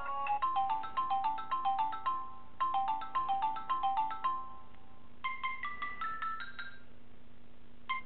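A Samsung Galaxy Core Prime's speaker plays a ringtone preview: a melody of short, quick notes, played twice. A little after five seconds a different, rising phrase of notes follows.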